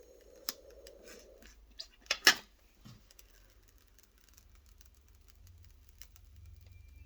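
Protective plastic film being peeled off a PC case's glass side panel: scattered crackles and clicks, with one loud sharp rip a little over two seconds in.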